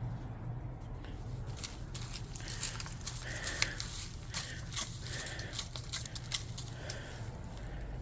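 Snow being knocked and brushed off branches: a rapid run of crisp crackles and rustles that starts about a second and a half in and dies down near the end.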